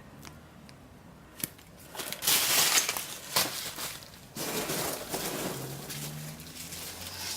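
Packaging rustling and crinkling as it is handled, in two stretches of a few seconds each, with a couple of clicks.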